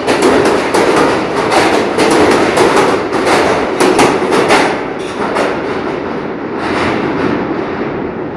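Kawasaki R143 subway train departing: its wheels clack rapidly over the rail joints as the cars pass. After the last car goes by, about four and a half seconds in, the clacking thins out and the train's sound fades into the tunnel.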